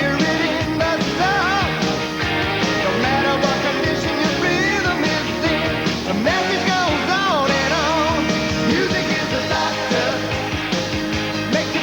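Rock music with singing, at a steady level.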